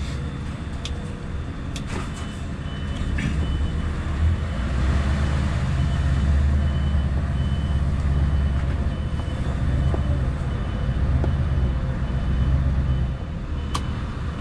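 Scania S650's V8 diesel engine pulling the truck away slowly, heard from the cab, with its rumble growing about four seconds in and then holding steady. A high warning beep repeats about three times every two seconds through most of it.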